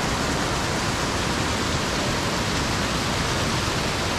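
Small waterfall rushing steadily: an even, unbroken hiss of falling water.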